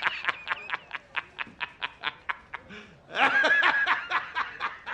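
A person laughing hard in rapid, high-pitched, squealing bursts, about four or five a second, rising to a louder squeal about three seconds in.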